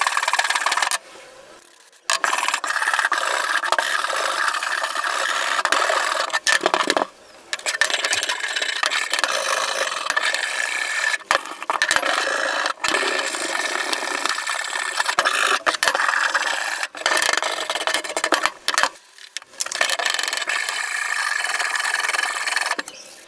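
Rust being scraped off the steel of an antique cleaver with an abrasive, a steady rasping scrape broken by three short pauses.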